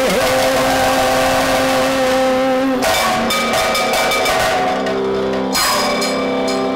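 Kathakali accompaniment: chenda and maddalam drums being played, with a singer holding one long note for the first three seconds or so.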